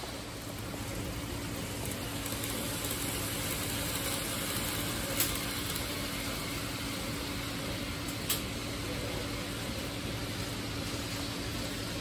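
TOMIX N gauge 117 series model train running on the layout's track: a faint steady hum over an even hiss of room noise, with two sharp clicks about five and eight seconds in.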